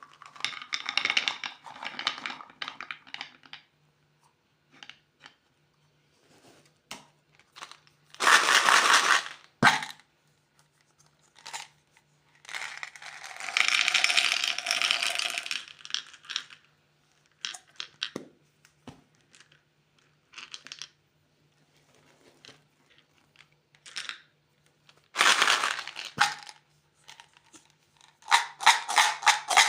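Candy wrappers being crinkled and torn open in several separate bursts, with small clicks and taps of handling in between.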